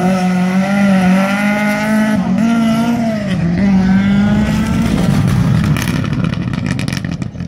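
Rally car engine held at high revs at full throttle, the pitch steady with small wavers. About six seconds in, a rally car passes close on gravel with a rapid crackle.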